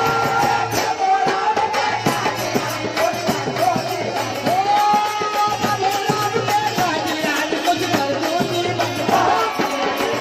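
Live Indian devotional folk music: a dholak and large hand-struck frame drums beat a steady rhythm with a jingling tambourine, over a held melody line.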